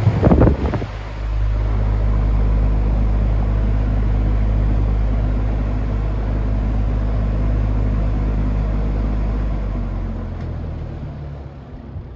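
Vintage General Electric box fan running: a steady motor hum under the rush of air, with a short clatter in the first second. The sound fades over the last couple of seconds.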